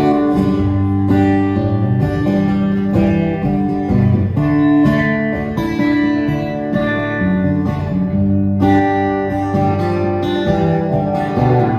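Acoustic guitar playing a run of chords, soundchecked on its own channel for the stage mix.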